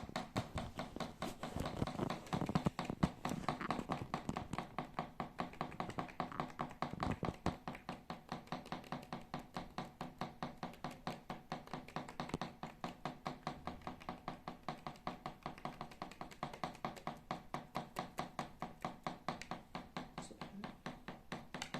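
Lovebird pecking at a tabletop, picking at breadcrumbs: a steady run of sharp taps, about five a second.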